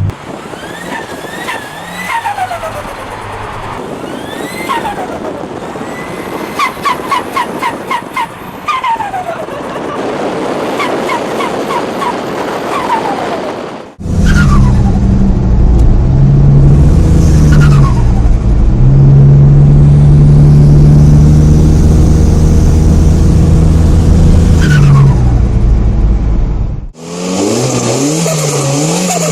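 Turbocharged car engines: the turbo whistle falls off sharply as the throttle closes, with a quick rapid fluttering chatter of compressor surge ('sutututu') in the middle. After an abrupt cut, a louder engine revs up and holds at high revs, its turbo whistle falling away as it lets off, and then another engine revs.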